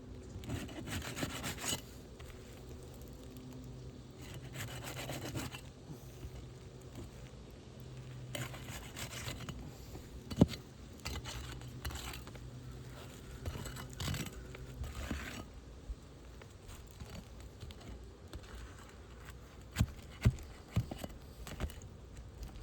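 Old, brittle three-tab asphalt shingles being worked loose for removal: repeated rough scraping in stretches of a second or so, with a sharp click about ten seconds in and a few sharp knocks near the end.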